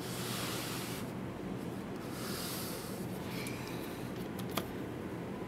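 A hand brushing and scraping through fresh snow on a window ledge: scratchy rustling in two stretches, one at the start and one about two seconds in, with a small click about four and a half seconds in.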